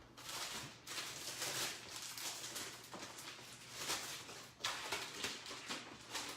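Rustling and light clattering of craft supplies being handled and searched through, in uneven bursts.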